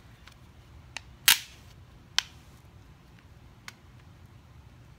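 A few sharp clicks and snaps as a swag-kit lamp socket is pushed and fitted into a light switch plate cover. The loudest snap comes just over a second in, with a lighter one a second later and faint ticks around them.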